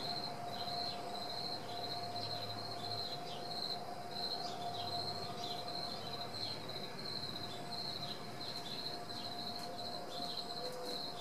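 Insects chirring: a high-pitched, rapidly pulsing chirp that keeps on steadily, with short falling chirps mixed in and a steady hum beneath.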